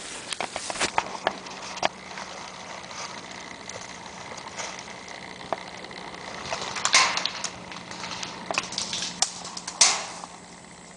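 Airsoft guns firing: scattered sharp snaps, thickest in the first two seconds, with two louder, longer noisy bursts about seven and ten seconds in.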